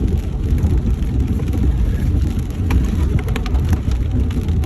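Road noise inside a moving car: a steady low rumble of tyres and engine. From a little past halfway, scattered light ticks of rain hitting the car.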